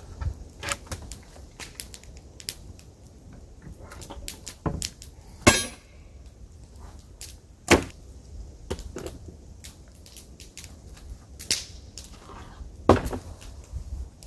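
Old weathered wooden boards and poles knocking and cracking as they are pulled loose and dropped: a run of irregular wooden knocks, the sharpest about five and a half seconds in, another near eight seconds and one more near the end.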